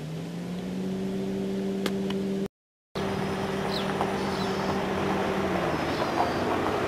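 A motor engine runs at a steady pitch, rising slightly as it starts and fading out near the end. The sound cuts out completely for about half a second, two and a half seconds in.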